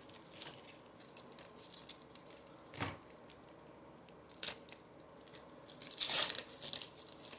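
Plastic-foil wrapper of a baseball card pack crinkling and being torn open, in scattered crackles with a couple of sharp snaps and the loudest tearing burst about six seconds in.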